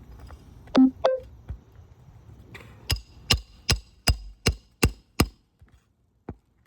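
Hammer striking a metal snake tool worked under roof shingles. Two heavy knocks come about a second in, then a run of seven quick, evenly spaced strikes with a metallic ring.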